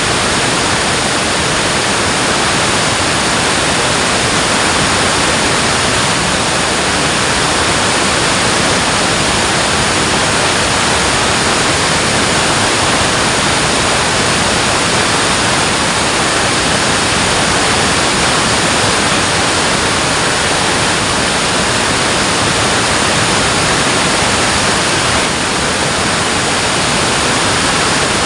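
Water rushing over a dam: a loud, steady, even rush of water noise.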